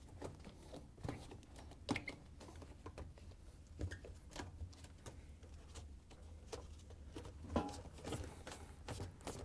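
Faint, irregular rubbing and light clicks of a rubber washer door bellow seal being pressed by gloved hands into the groove around the metal front panel.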